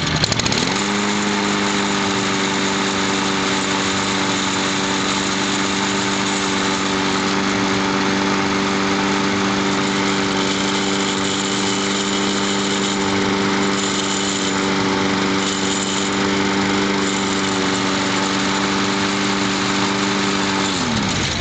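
Yard Man self-propelled mulching mower's small gas engine running at a steady speed. Its pitch dips sharply and recovers within the first second, then it winds down to a stop near the end.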